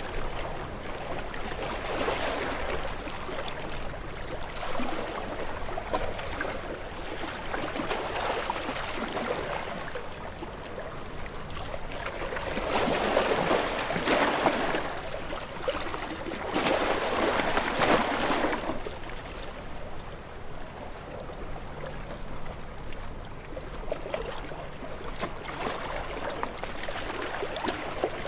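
Small waves washing in and running back on a shore, rising and falling in a loose rhythm, with two larger surges about halfway through.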